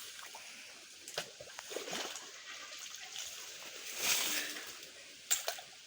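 Shovel digging into wet mud in a shallow stream, with water sloshing and splashing and a few separate wet knocks; a longer splash about four seconds in, the sharpest knock a little after five seconds.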